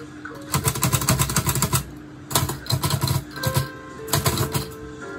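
Olivetti Lettera 25 manual portable typewriter being typed on, in quick runs of keystrokes with a short pause about two seconds in. The keys stop in the last couple of seconds, leaving soft background music with held notes.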